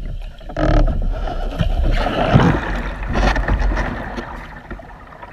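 Water churning and splashing around a kayak as it is rolled back upright, the paddle sweeping through the water. The sound swells about half a second in, is loudest around two to three seconds in, then dies down.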